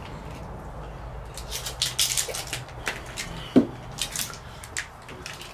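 A sip of water being taken, with small handling clicks and soft hissing sounds scattered through, and one sharp click about three and a half seconds in.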